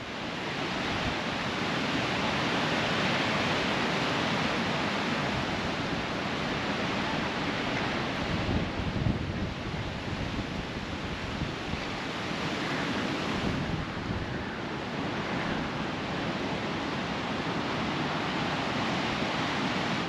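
Gale-force wind rushing through the trees and buffeting the microphone: a steady hiss with a low rumble that swells and eases with the gusts.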